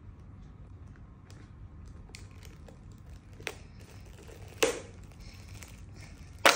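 A giant surprise egg being pried open by hand: scattered small clicks and creaks, a sharp snap about two-thirds of the way through, and a louder sharp crack at the very end as the shell gives.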